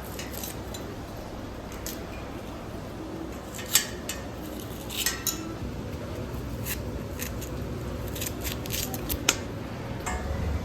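Light clicks and clinks of small objects being handled, scattered and irregular, with two sharper clicks about four and nine seconds in, over a low steady hum.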